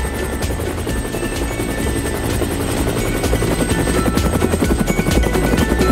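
Cartoon vehicle sound effect: a fast, steady chopping, growing louder about halfway through, over background music with a low bass line.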